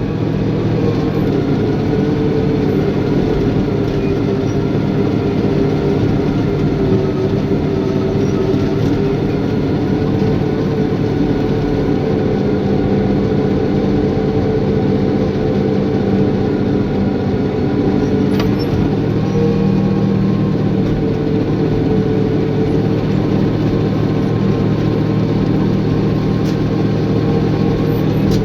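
Caterpillar bulldozer's diesel engine running steadily under load, with a fine rattle through it.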